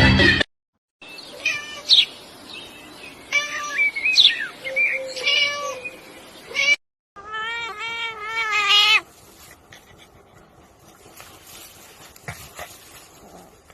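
A cat meowing four times, with calls of varying pitch and length; the last is a wavering call about two seconds long. A sharp tap comes near the end.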